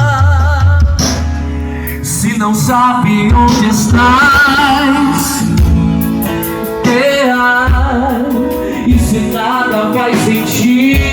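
Live band music through a PA sound system: a singer holding wavering, vibrato notes over bass, guitar and a steady drum beat.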